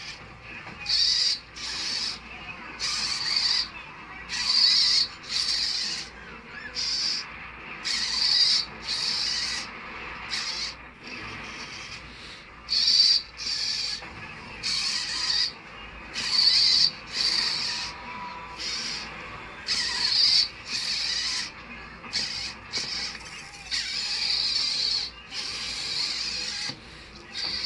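Hobby RC servos of a 3D-printed robot arm (MG995-class) whirring in many short high-pitched bursts, each a fraction of a second to about a second long, starting and stopping abruptly as the joints are driven one by one.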